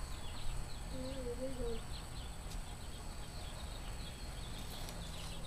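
Outdoor ambience: small birds chirping repeatedly over a low rumble of wind on the microphone. A brief wavering hum comes about a second in.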